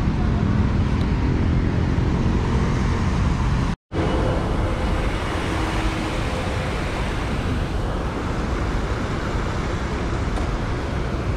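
Steady city traffic noise: cars passing on wet streets. The sound drops out to silence for a moment a little under four seconds in, then the traffic noise carries on.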